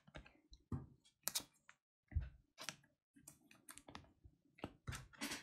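Faint, irregular clicks and taps of Topps Match Attax trading cards being handled and set down, with one duller thump about two seconds in.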